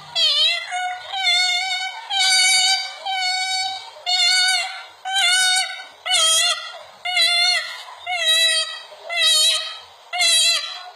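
Pet white cockatoo calling over and over, a run of short, high, wavering calls about one a second, with one longer held call about two seconds in.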